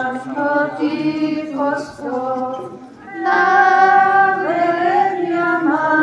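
Women's voices singing a hymn together in slow, held notes that glide between pitches.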